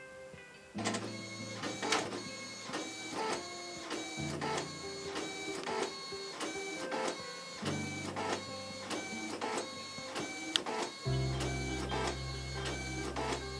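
Canon BJC-2000 inkjet printer scanning with an IS-22 scanner cartridge in place of the ink cartridge: the print carriage moves in evenly repeated strokes with a steady motor tone. It starts suddenly about a second in.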